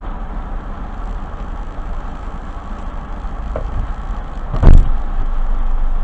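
Car engine idling and low road rumble heard from inside the cabin while the car sits in slow traffic. A single short, loud thump comes about three-quarters of the way through.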